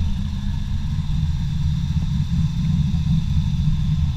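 LS3 V8 engine of a built Camaro Z28 running steadily at low revs, without revving up.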